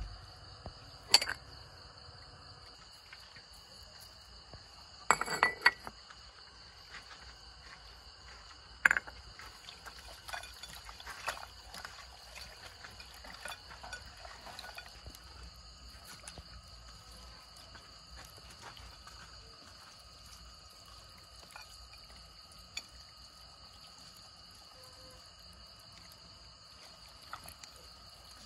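Sauce is poured into a ceramic bowl of raw rat meat, which is then squeezed and mixed by hand, with a few sharp clinks against the bowl. A steady high insect chirring runs underneath.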